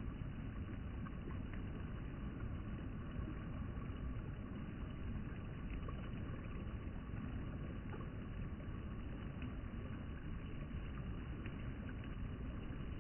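Floodwater of a river swollen by heavy rain rushing past in a steady, low rush of water.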